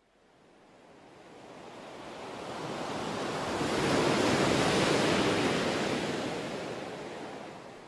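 Ocean surf washing onto a sandy beach. It swells up from silence to a peak about halfway through, then fades away.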